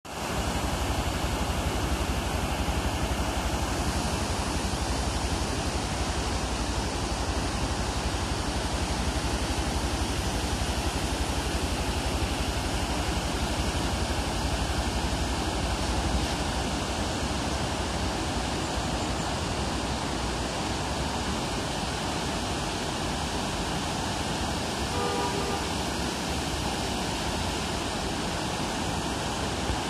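Fast, rocky mountain river rushing through whitewater rapids: a steady, even rush of water throughout.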